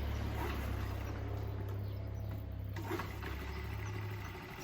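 Honda Chaly minibike's small single-cylinder engine running on choke with a steady low note, which drops away about four seconds in. Old fuel is still working through the carburettor.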